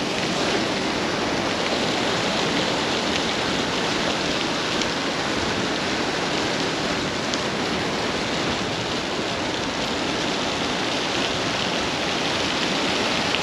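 Steady rushing of sea water, the surf washing below a fishing pier, even and unbroken throughout.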